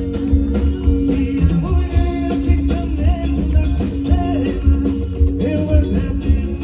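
Amplified live band music with a steady beat, bass and guitar.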